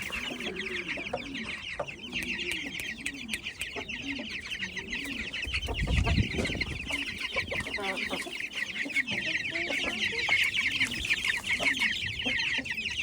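Ayam cemani chickens clucking in a run of low, repeated clucks, over a steady high chatter of small birds. There is a low thump about six seconds in.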